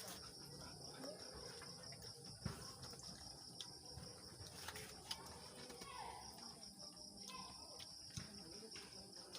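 Insects chirping in a steady, fast pulsing high trill of the cricket kind, with scattered soft clicks and taps.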